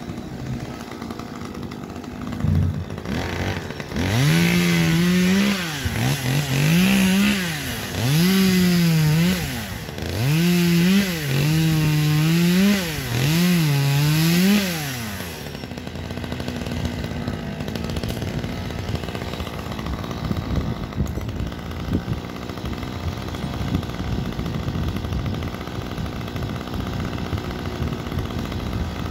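Two-stroke chainsaw revved hard in about six bursts, each climbing to full speed and dropping back, then settling to a steady idle for the second half.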